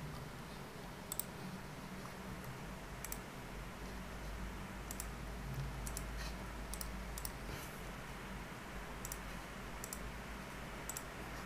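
Faint computer mouse clicks, a dozen or so scattered at irregular intervals, over a steady low hum.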